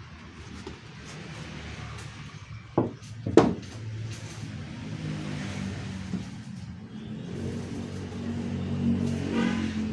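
A car engine running with a low hum that grows louder in the second half, with two sharp knocks about three seconds in.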